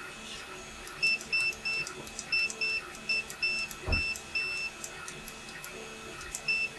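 Multimeter continuity beeper giving a run of short, uneven beeps with a few longer ones as key switches are tested. The broken, irregular beeping shows switch contacts that don't always close cleanly. A soft thump comes about four seconds in, over a faint steady hum.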